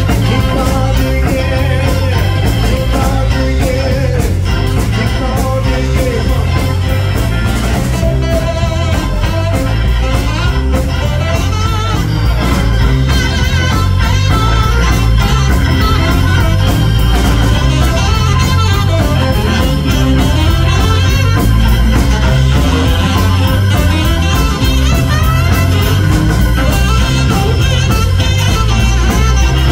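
Live blues band playing, with electric guitar, keyboard organ, drums and saxophone over a steady drum beat.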